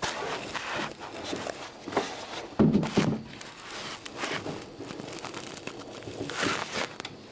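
A steamed oak frame being bent and pressed by hand into a clinker dinghy hull: irregular wooden scraping, rubbing and creaking against the planking, with a louder knock about two and a half seconds in.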